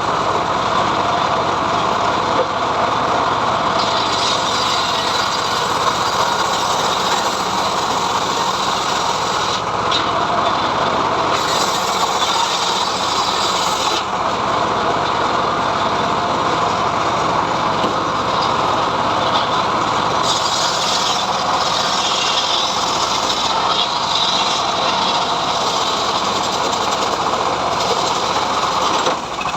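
Homemade engine-driven sawmill (gergaji srekel) running steadily as it rips mahogany, a loud continuous machine noise. A higher-pitched cutting hiss comes and goes over it.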